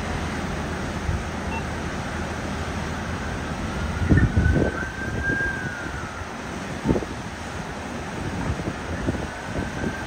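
River rapids rushing steadily as the current breaks into a standing wave of whitewater over a rock, with wind buffeting the microphone in gusts about four and seven seconds in. A faint high tone rises and falls slightly in the middle.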